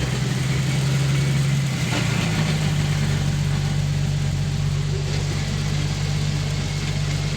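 Jeep Cherokee idling in gear with its rear axle in the air, engine and spinning rear driveline making a steady low hum that shifts in pitch about two seconds in. The rear axle is a Chrysler 8.25 differential with a chipped ring gear tooth, being run to listen for damage.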